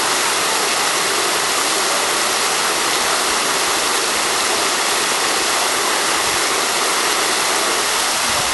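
Fountain jets spraying up and splashing back into a pool: a steady hiss of falling water.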